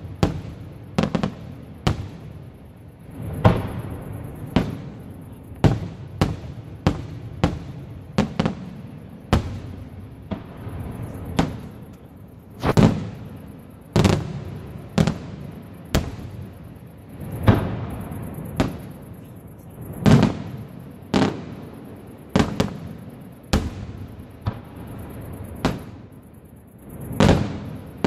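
Aerial firework shells bursting one after another, a sharp bang every second or so, some in quick pairs, each followed by a short rumbling echo.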